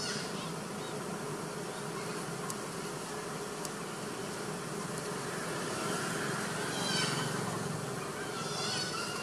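Macaque calls: short, high, wavering squeals that start about six seconds in and come again near the end, over a steady buzzing background.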